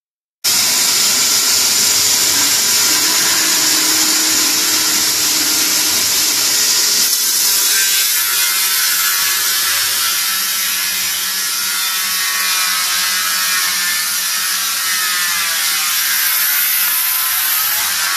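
Four-side moulder with splitting saw cutting a rough timber board as it feeds through, its spinning cutterheads making a loud, steady, hissing machining noise. It starts suddenly about half a second in, and near the end the pitch of the cutting sags and recovers.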